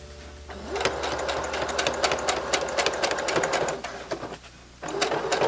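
Brother HC1850 electric sewing machine stitching a coat zipper through thick layers, its needle clicking rapidly over the motor's hum. It starts about half a second in, speeding up as it goes, stops briefly near the end, then starts stitching again.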